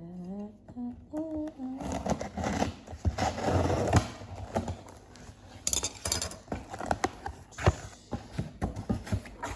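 A woman humming a short tune, then packaging being handled and opened by hand: rustling and crinkling with many sharp clicks and snaps.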